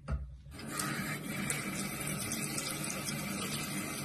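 Bathroom tap running into the sink: a short bump at the start, then the water comes on about half a second in and keeps up a steady, even flow.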